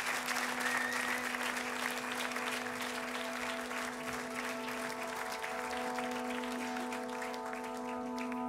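Audience applause fading out as a steady held low note begins and sustains, with more held notes layered above it from about halfway in.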